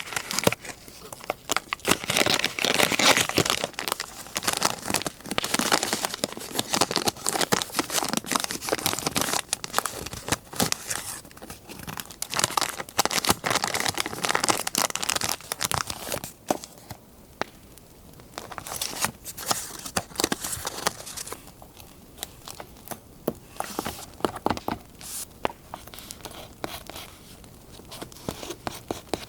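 Paper being handled by hand: crinkling, rustling and tearing. It is busy and continuous at first and thins to scattered rustles and small clicks in the second half.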